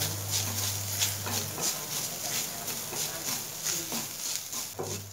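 A flat wooden spatula stirring and scraping grated coconut roasting in ghee in a kadai, in quick regular strokes about three a second over a faint sizzle.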